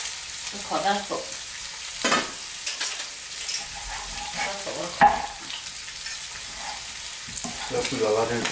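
Food sizzling in a frying pan, a steady hiss, while a knife knocks on a wooden cutting board as a cooked ribeye steak is cut. The sharpest knock comes about five seconds in.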